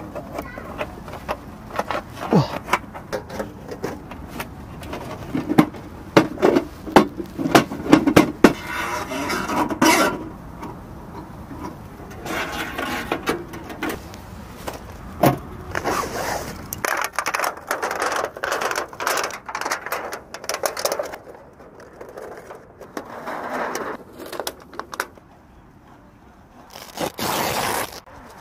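Heat-warped sheet-metal parts of a camping wood stove and its flue pipe being forced together by hand: repeated metal scraping, knocks and clanks, because the warped pieces will not fit easily.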